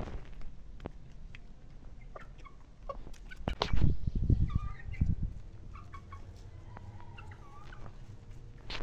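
Chickens clucking softly in short scattered calls. A few loud, low thuds come about three and a half to five seconds in.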